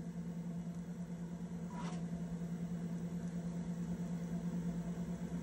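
Steady low hum of a filmstrip projector-viewer running between narration lines, with a faint click about two seconds in as the slide changes.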